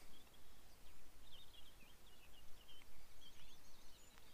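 Faint birdsong: a small bird twittering in quick, warbling phrases, over a low steady outdoor rumble.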